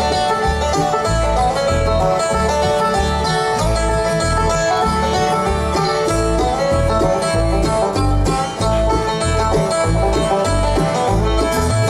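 Live bluegrass band playing an instrumental break, banjo to the fore with guitar, over a steady, even bass beat.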